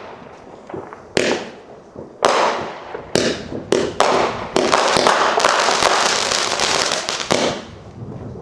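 Fireworks going off: a few separate bangs, then from about halfway through a dense run of rapid crackling bangs that fades out near the end.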